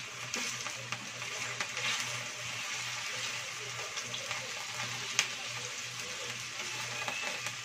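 Chicken pieces sizzling in hot oil in a nonstick frying pan, a steady hiss, with a few sharp clicks of a spatula against the pan as the pieces are turned.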